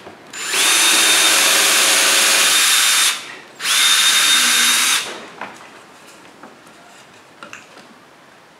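Cordless drill boring two holes through a wooden plank at a steady speed: one run of about two and a half seconds, a short pause, then a run of about a second and a half, followed by faint handling clicks.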